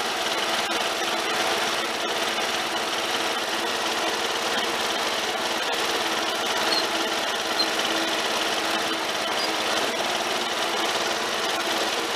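Snapper LT11 garden tractor's engine running steadily while the tractor drives along.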